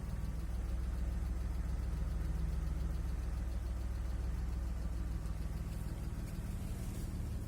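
BMW M50B25 2.5-litre straight-six idling steadily at operating temperature, with the ticking knock it develops when hot, which the owner puts down to the hydraulic lifters.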